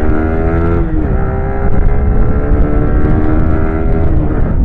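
Yamaha R15's 155cc liquid-cooled single-cylinder engine accelerating through the gears. Its pitch climbs, falls at an upshift about a second in, then climbs steadily again and falls at another shift near the end.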